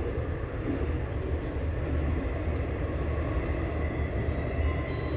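Seoul Subway Line 9 train running, heard from inside its rearmost, unpowered car: a steady low rumble of wheels on the track with an even running noise.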